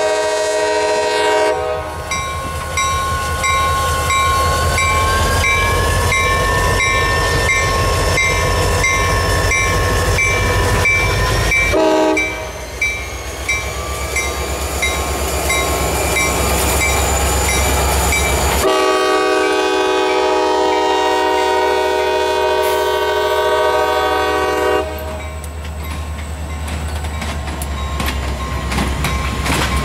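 Lead CSX GP40-2 diesel locomotive passing close, sounding its multi-chime air horn: a blast cutting off near the start, a short blast about twelve seconds in, and a long blast from about nineteen to twenty-five seconds. Under the horn run the low, steady rumble of the diesel engines and an evenly repeating high ringing.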